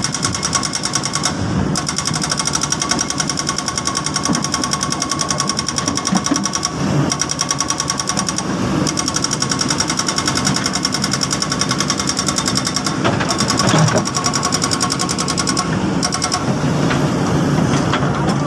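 Kobelco hydraulic excavator working under load: its diesel engine running hard with a fast, even pulse and a steady hydraulic whine that dips briefly a few times. A couple of sharp knocks about thirteen seconds in.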